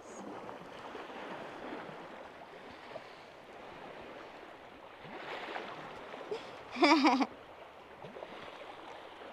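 Sea water rushing and splashing along the bows of an aluminium sailing catamaran under way. About seven seconds in comes a short, wavering vocal cry, the loudest sound.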